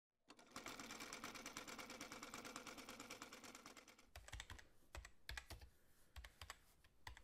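Faint computer-keyboard typing. A fast, dense run of keystrokes lasts about the first four seconds, then the key presses slow to separate strokes with heavier thuds.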